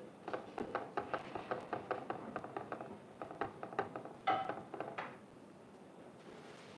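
Metal spoon tapping and scraping on a dosa tawa as potato masala filling is spread over the dosa. It makes a quick, uneven run of light clicks, with one louder clink a little past four seconds, and stops about five seconds in.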